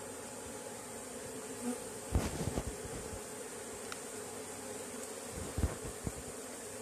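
Honeybees of a small swarm buzzing in and around a nucleus hive just after being shaken into it: a steady hum. A few low knocks sound about two seconds in and again near the end.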